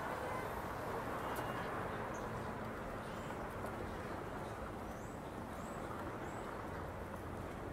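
Steady outdoor street ambience, a low even background noise, with a few faint bird chirps now and then.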